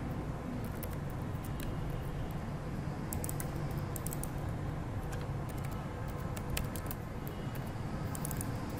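Typing on a computer keyboard: short runs of keystroke clicks with pauses between them, over a steady low hum.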